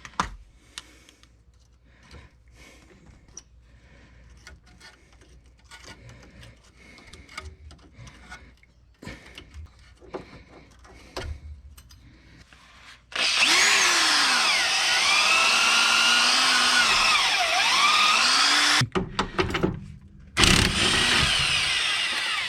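Light clicks and handling at first. About 13 seconds in, a power tool spinning a wire wheel starts against rusted tie-rod and sway-bar-link threads, and its pitch dips and recovers as it is pressed into the work. It stops after about six seconds and runs again briefly near the end.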